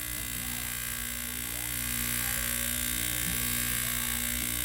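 Refrigeration vacuum pump running steadily, evacuating a refrigerator's sealed system, with a constant motor hum and air being pushed out of the pump. It gets slightly louder about halfway through.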